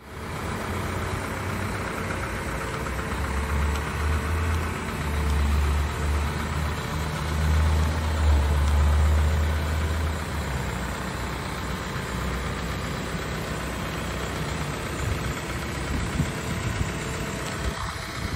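Diesel truck engine idling steadily, with a heavier low rumble from about three to ten seconds in.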